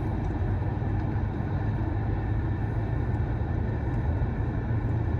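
Steady road and engine noise inside a moving car's cabin: an even low hum with a broad rushing hiss.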